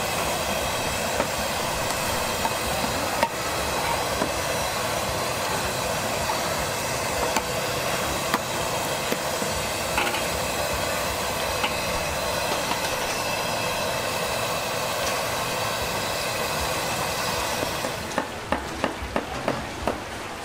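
Battered squid deep-frying in hot oil in a large steel wok: a steady sizzle with scattered crackles and pops. Near the end the sizzle thins and a quick run of about six sharp taps, roughly three a second, comes through.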